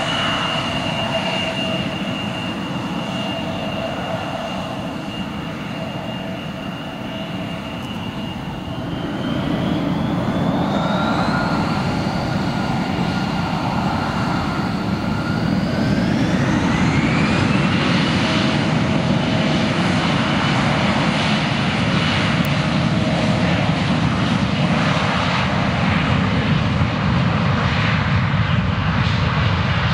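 Embraer 175 jet's two General Electric CF34-8E turbofans whining steadily at low power, then spooling up to takeoff thrust. The high whine rises in pitch in two steps, about a third of the way in and again about halfway, and the engine rumble grows louder with each step as the takeoff roll begins.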